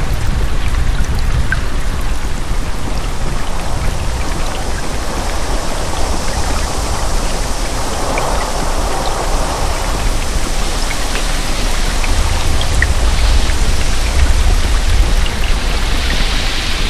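Steady rain: a dense, even hiss with scattered small drop ticks and a low rumble underneath.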